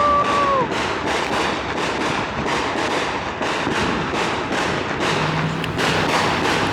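Fireworks going off in quick succession: a dense run of crackling pops and bangs, several a second, like a string of firecrackers. A steady whistle-like tone cuts off within the first second.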